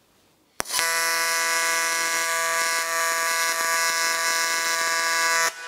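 TIG welding arc: a sharp click as the arc is struck about half a second in, then a steady buzz over a hiss for about five seconds, stopping abruptly near the end.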